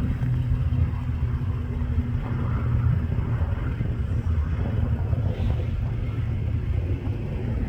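Robinson R44 helicopter's rotor and piston engine running with a steady low drone.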